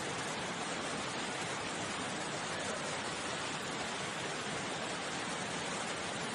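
Steady rushing of a swollen, fast-flowing river in flash flood, an even noise without breaks.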